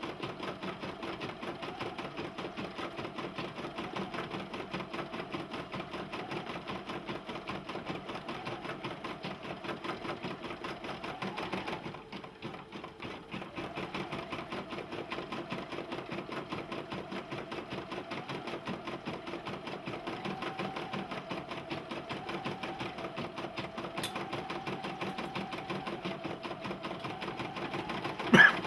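Brother PE770 embroidery machine stitching in a fast, even needle rhythm; the sound dips briefly about halfway through. A single sharp clack comes near the end.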